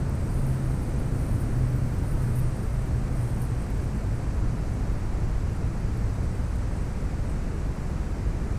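Steady outdoor rumble, heaviest in the low end, with a low hum over the first three seconds that then fades.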